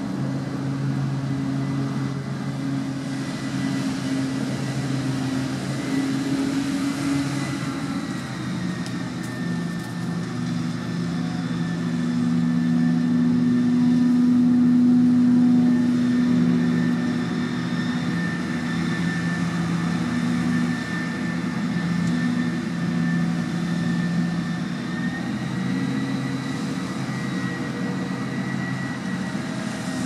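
Self-propelled forage harvester working in standing maize: a steady diesel engine drone with a constant high whine over it, growing louder to a peak about halfway through and then easing off a little.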